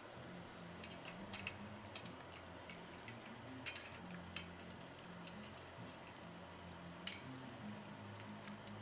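Oil in a stovetop pot crackling as pastry cones deep-fry, with about fifteen sharp pops spaced irregularly, over a low hum.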